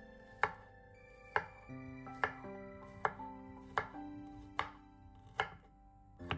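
Chef's knife slicing garlic cloves on a wooden chopping board: a sharp knock of the blade on the board about every 0.8 s, eight cuts in all.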